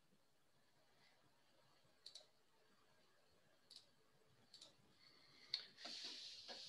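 Faint computer mouse clicks over near silence: a quick double click about two seconds in, a single click, another double click, and a last, slightly louder click near the end, after which a soft hiss comes up.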